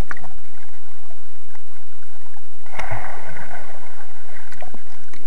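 Underwater sound in a swimming pool: a child plunges in close to the microphone almost three seconds in, a sudden muffled splash followed by a hiss of rushing bubbles that fades over about two seconds. Before it, only the faint hollow hiss of the water with a few small clicks.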